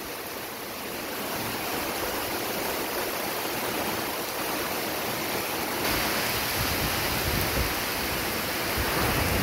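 Heavy rain and strong wind in a storm make a steady rushing hiss. It grows louder about six seconds in, with gusty low rumbles toward the end.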